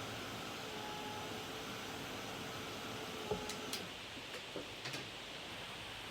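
Craft heat tool blowing steadily with a faint hum while drying freshly applied primer on crackle paste. It is switched off with a click about halfway through, followed by a few light taps and ticks.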